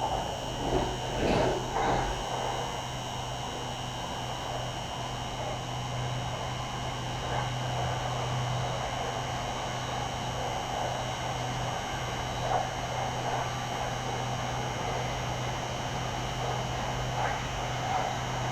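Inside a Red Line electric commuter train as it runs: a steady low hum with faint, constant high whines from the electrical equipment. A few short knocks come in the first two seconds.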